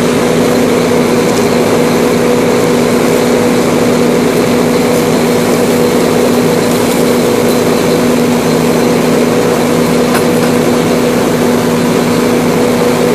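Fire engine's engine and pump running steadily at pressure to supply the hose line: a constant, loud engine drone with a steady hum and a hiss beneath it.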